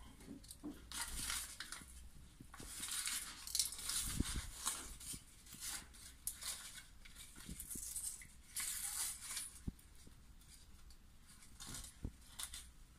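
Rustling and crackling of a self-adhesive PVC sealing strip handled by hand: snipped with scissors, peeled from its backing and pressed down. It comes in intermittent short swishes with a few light clicks.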